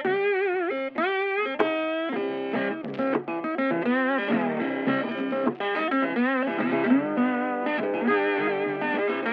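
Background music: a guitar playing a melody with bent, wavering notes over an accompaniment.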